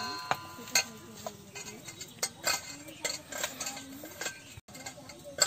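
Stainless steel bowls and utensils clinking and knocking: about a dozen irregular taps and clinks. At the start, the ringing of a struck steel pot fades away.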